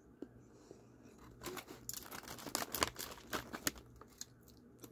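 Takeout packaging being handled, giving a burst of sharp crinkling and crackling that starts about one and a half seconds in and lasts about two seconds.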